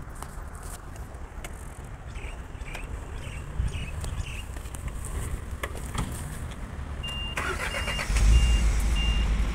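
Box truck's engine running low, then pulling harder about eight seconds in as the truck starts to move. From about seven seconds in a reversing beeper sounds in short, evenly spaced beeps, about two a second.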